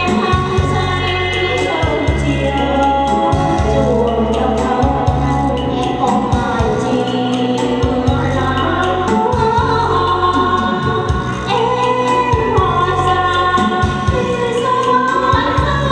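Vietnamese song performed live: women singing into handheld microphones over an amplified backing track with a steady bass beat.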